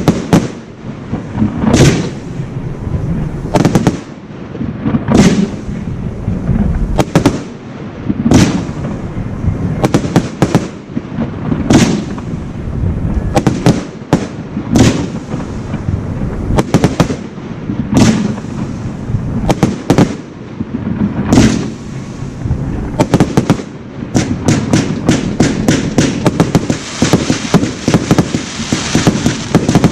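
Aerial fireworks display: shells bursting with sharp booms about every second and a half, amid continuous crackling, which thickens into a dense rapid barrage of reports and crackle in the last few seconds.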